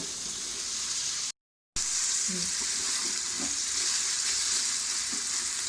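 Chopped tomatoes and onions frying in oil in a pan with a steady sizzle, with a few soft scrapes from stirring. The sound cuts out completely for a moment about a second and a half in.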